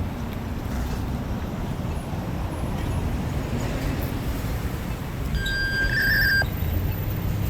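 Steady low rumble of outdoor road traffic, with one brief high electronic beep about a second long a little over five seconds in.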